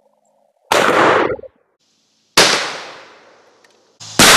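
Three loud blasts from a 20-gauge side-by-side shotgun, about a second in, about two and a half seconds in, and near the end; the middle one dies away over about a second.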